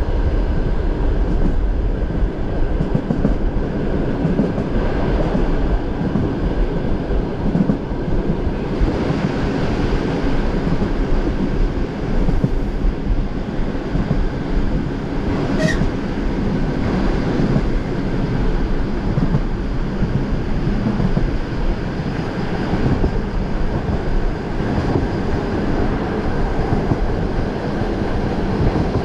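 Suburban electric train running at speed, heard from inside the carriage: a steady, loud rumble of the running gear on the track, with faint steady hum tones through it. A single brief sharp sound cuts through a little past halfway.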